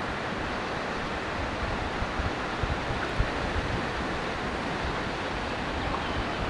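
Steady rushing of river water around a canoe, with wind buffeting the microphone and a few low thumps about two to three seconds in.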